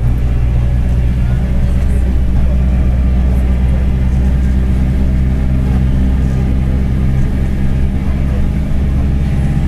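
Mercedes-Benz OF-1721 BlueTec 5 bus's four-cylinder diesel engine running steadily under way, with the low rumble of its cardan driveshaft.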